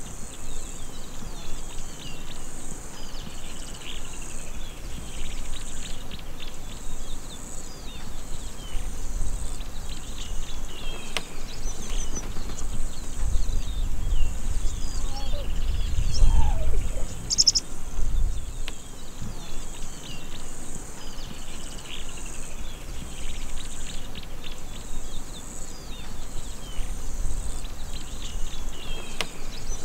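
Grassland ambience: a steady, pulsing high insect chorus with repeated short bird chirps over it, and a low rumble that swells about halfway through.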